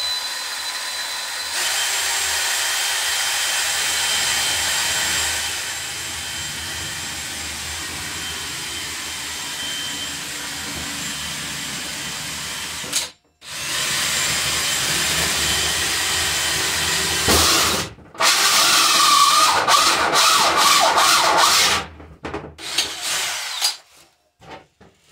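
Cordless drill with a hole saw cutting a hole through a shower wall panel. It runs steadily for about thirteen seconds, stops briefly, then cuts on in two more runs, the last one louder and rougher. It stops a few seconds before the end, leaving a few clicks and knocks.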